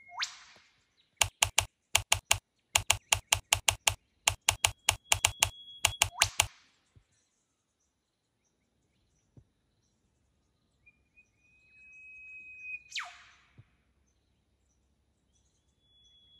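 Eastern whipbird calling three times: each call is a long whistled note that ends in a sharp whip-crack. Between the first two calls comes a quick run of sharp, evenly spaced clicks, like keyboard typing, lasting about five seconds.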